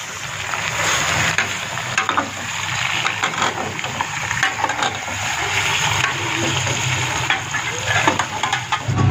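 Meat pieces frying and sizzling in a metal pot on a gas stove while a steel ladle stirs them, its edge knocking and scraping against the pot again and again.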